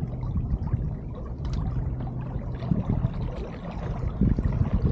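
Water splashing and gurgling along a sailboat's hull as it moves, over a steady low rumble.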